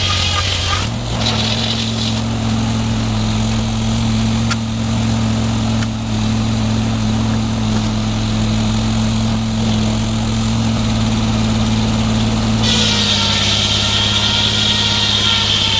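A sawmill's engine runs steadily. Its pitch steps up slightly about a second in and settles back near the end. A higher whine over it drops out at the first change and comes back near the end.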